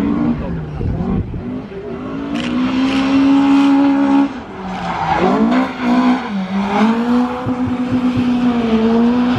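Van engine held at high revs while drifting, with tyres squealing as they spin and smoke. The engine note sags and comes back up about halfway through, then holds steady again.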